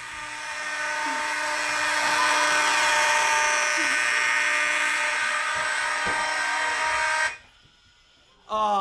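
Building fire alarm sounding a loud, steady electronic tone that cuts off suddenly about seven seconds in; it went off because the alarm system was in test.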